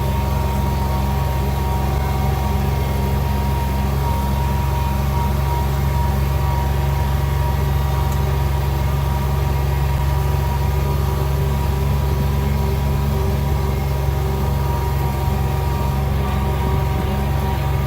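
Vehicle engine running steadily: a constant low hum with a faint steady whine above it, unchanging throughout.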